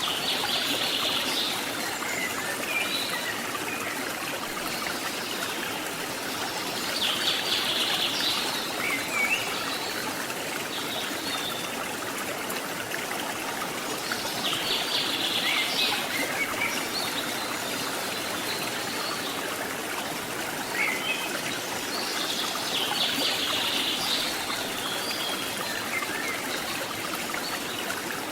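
Steady rushing of river and waterfall water. A high call repeats four times, about every seven to eight seconds, with a few short chirps between.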